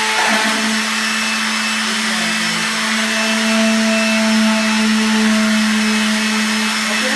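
Electric sander running steadily at full speed with an even motor whine, sanding body filler on wood.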